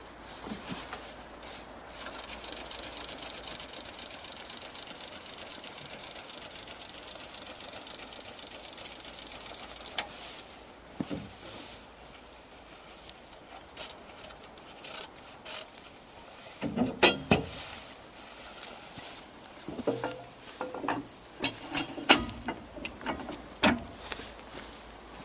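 Metal handling noises on a small narrow-gauge diesel locomotive being readied for a hand-crank start: a fast, even ticking that stops about ten seconds in, then sharp metallic clicks and clanks, loudest in two clusters in the second half as the controls are worked and the starting crank is fitted.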